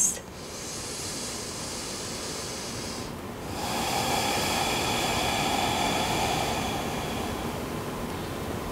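A woman's slow, deep breaths, audible at the microphone: two long drawn breaths, the second louder, beginning after a short pause about three and a half seconds in.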